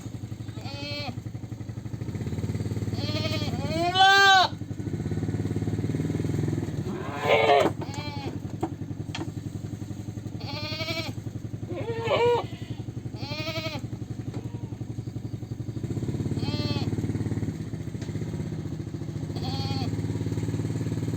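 Goats bleating again and again, about ten wavering calls, the loudest about four seconds in, over a steady low motor rumble.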